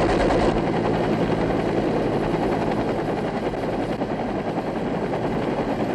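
UH-1 Huey helicopter running steadily in flight. A door gunner's machine-gun fire cuts off about half a second in.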